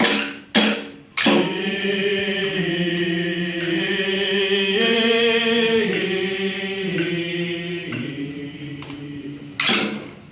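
A single voice singing one long, held phrase in Korean traditional vocal style, its notes stepping up and down in pitch. It follows two sharp rhythmic beats in the first second or so, and the sharp beats start again near the end.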